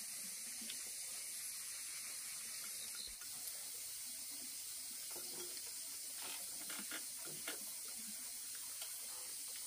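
A steady high hiss, with a few faint clinks of chopsticks against china bowls and plates about six to seven and a half seconds in.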